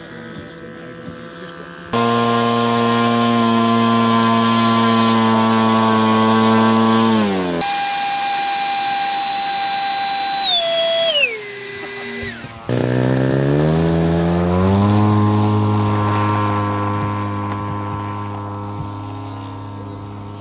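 Radio-controlled model aircraft engines in quick succession: a model aero engine starts running steadily about two seconds in, then a high whine from a model jet that falls in pitch, then a model warbird's engine rising in pitch as it opens up and holding at high revs, slowly fading.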